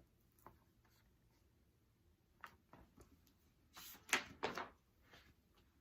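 Soft rustling and clicks of a picture book's page being turned, with the loudest strokes a little past the middle.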